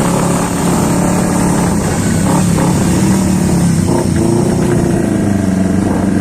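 Yamaha R25 parallel-twin engine running steadily at an even, low speed through a WRX aftermarket exhaust.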